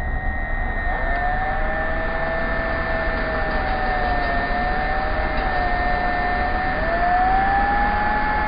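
Electric drill running a hole saw through plywood: a steady high motor whine over a lower whine that wavers with the load and rises near the end, with the rasp of the saw teeth underneath. The audio is slowed with the slow-motion footage, so it sounds deep and muffled.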